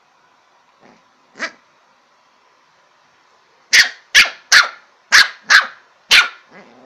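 Lhasa apso puppy barking: a short yip about a second and a half in, then six sharp barks in quick succession over about two and a half seconds.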